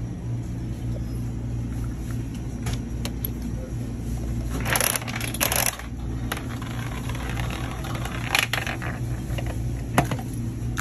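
Spiral gumball machine being worked: scattered clicks, two short rattling bursts about five seconds in as a gumball runs down the plastic spiral, and a sharp knock near the end at the dispensing chute, over a steady low hum.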